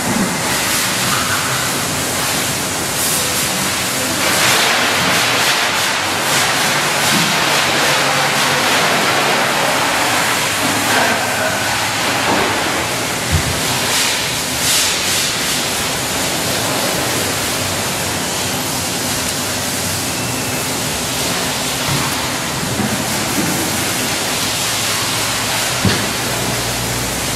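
Steady rushing hiss of water spray running in a car wash bay, with a sharp knock about halfway through and another near the end.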